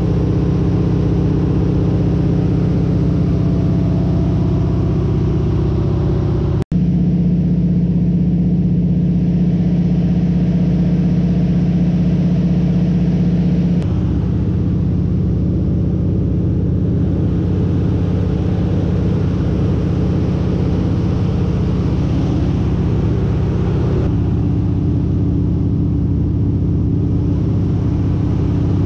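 Single-engine propeller airplane's engine and propeller running steadily in flight, heard from inside the cockpit. There is a brief gap about seven seconds in and a slight change in tone about fourteen seconds in.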